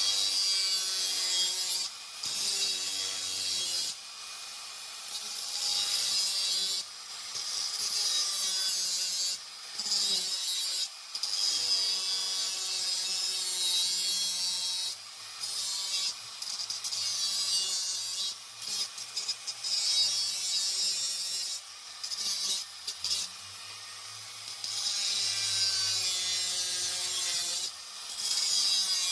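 Handheld grinder grinding the metal of a motorcycle exhaust pipe, cutting out the welds that hold a restrictor plate inside it. It runs in rasping bursts a few seconds long, broken by short pauses.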